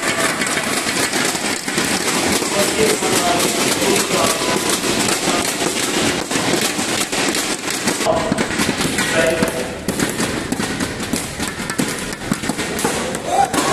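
Spectator crowd clapping and banging inflatable thundersticks in a rapid, continuous clatter, with voices calling out over it.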